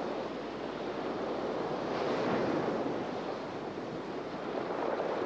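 Rough sea surf with wind: waves breaking and a steady rushing noise that swells about two seconds in and again near the end.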